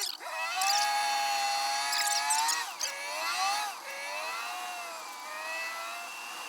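Mack semi truck's diesel engine pulling under load, its whining pitch rising and holding, then dropping and climbing again twice as it shifts up through the gears.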